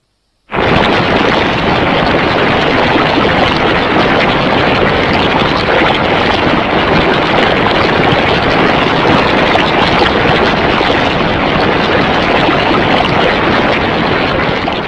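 Hedorah monster sound effect: a loud, steady, rough noise with no clear pitch, starting abruptly about half a second in and holding unchanged.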